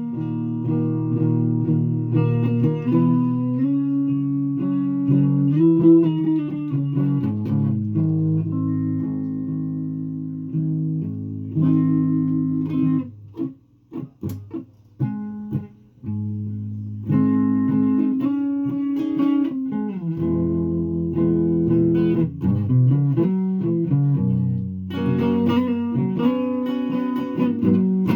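Guitar played solo, chords strummed and left to ring, changing every second or two. About halfway through the playing drops away for a couple of seconds, with only a few quiet scratches, then resumes.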